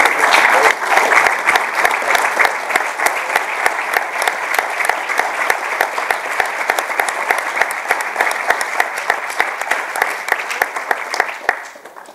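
Audience applauding: dense hand-clapping that slowly thins out and stops just before the end.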